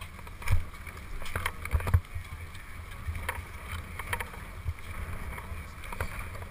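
Skiers shuffling in ski boots on packed snow while carrying skis and poles, giving irregular knocks and clacks over a steady low rumble.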